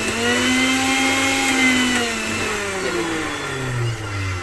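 Maharaja Whiteline juicer mixer grinder's motor running with its threaded coupling refitted after a repair for noise, a smooth whine that the owner calls excellent. About halfway through, the pitch falls steadily as the motor slows down.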